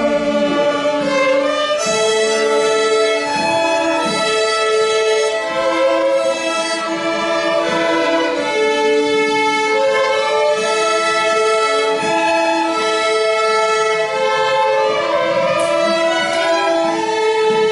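Youth string orchestra playing, violins carrying a melody in long held notes.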